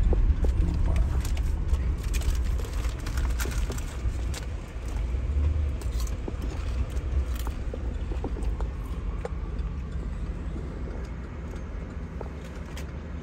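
Inside a moving car's cabin: steady low road and engine rumble with scattered light rattles and clicks, growing gradually quieter toward the end.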